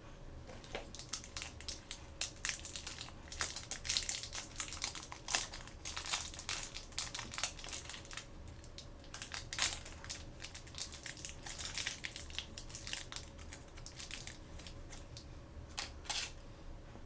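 Plastic toy packaging crinkling and crackling in irregular bursts as it is handled and torn open, starting about a second in and stopping just before the end.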